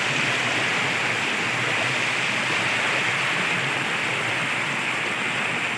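Steady rush of water flowing over rocks at a waterfall.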